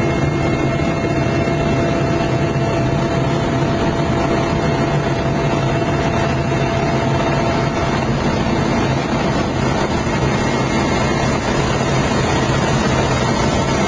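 Mil Mi-8 helicopter in flight, heard from inside the passenger cabin: its twin turboshaft engines and main rotor running steadily, a loud, even rush with a few constant whining tones.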